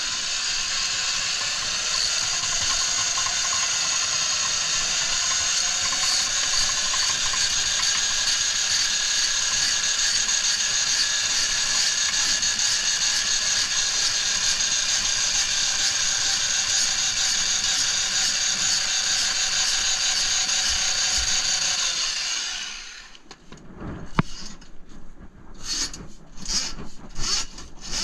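Handheld powered drum auger running steadily, its spinning drum turning the cable in a grease-clogged kitchen sink drain line: a motor whine with several steady pitches that dips slightly about four seconds in. The motor stops suddenly about 22 seconds in, followed by short rubbing, scraping strokes of the cable being worked by hand.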